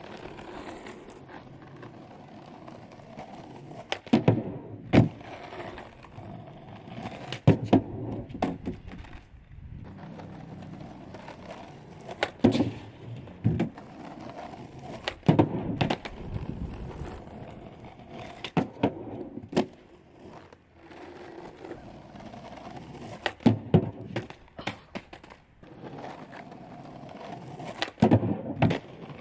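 Skateboard wheels rolling with a steady hum, broken about every three to five seconds by a cluster of two or three sharp clacks: the tail popping and the board landing on and coming off a DIY manual pad.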